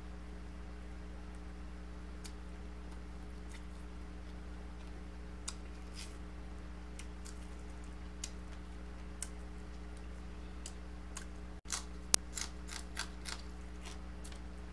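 Small wet clicks and smacks of eating, fried tilapia being bitten and sucked off its bones, scattered and soft at first with a quick run of sharper clicks near the end. A steady low hum lies underneath.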